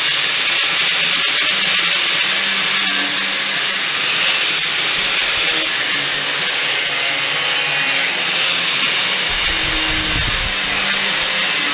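Background music over a steady hiss, with a low rumble coming in near the end.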